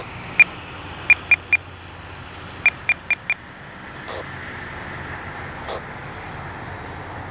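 RC radio transmitter giving eight short high beeps in quick clusters, the tones of its trim buttons being pressed to trim out the plane, over a faint steady background noise.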